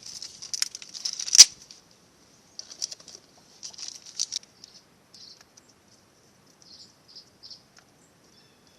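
Small packets of battery hardware being wrestled open: crinkling and rustling with sharp crackles, the loudest crack about a second and a half in, then scattered fainter rustles.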